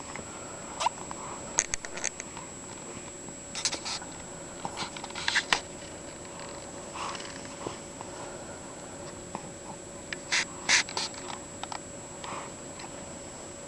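A cat sneezing and snuffling: short sharp bursts scattered through, the loudest two close together about ten seconds in.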